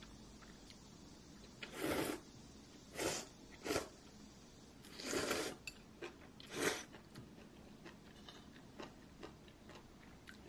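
A person slurping noodles and broth five times in quick, airy pulls, the longest about five seconds in, with a few faint clicks of chopsticks on a small dish.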